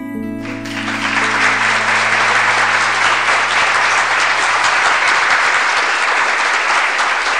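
The last held note of a sung song with its backing music ends about half a second in, and steady applause breaks out and continues.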